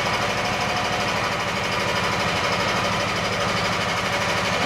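Small engine running at a steady speed with a rapid, even pulse, driving a homemade mower deck's blade through a belt and pulleys.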